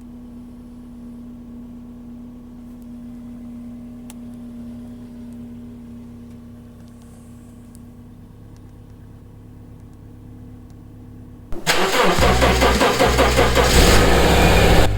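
A faint steady hum, then about eleven and a half seconds in, a 2009 Subaru Outback's engine suddenly cranks and fires loudly, starting up.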